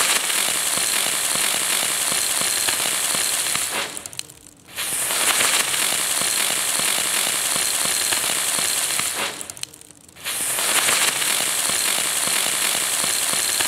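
Ground spinner firework spinning and hissing with a dense crackle of sparks, in three bursts of about five seconds each: the first stops about four seconds in, the second starts about a second later, and the third starts about ten seconds in.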